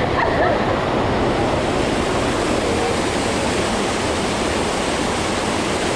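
Loud, steady rushing of water cascading down a waterfall.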